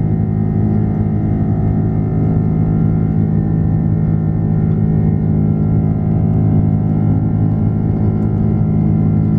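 Airbus A330-300's Rolls-Royce Trent 700 turbofan engines at high thrust in the initial climb after take-off, heard inside the cabin: a steady, loud drone holding many steady tones.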